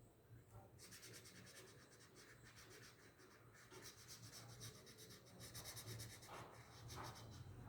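Faint, fast back-and-forth scratching of a felt-tip marker colouring in on paper.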